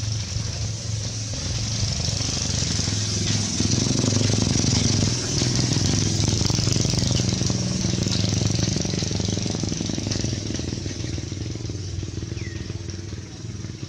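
A motor vehicle's engine running off-screen, growing louder through the middle and easing off toward the end, over a steady high hiss. A faint short chirp comes near the end.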